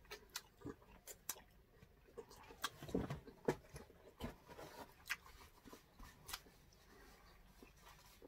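Eating sounds: scattered soft clicks and smacks of chewing and lips, with a few louder ones about three seconds in.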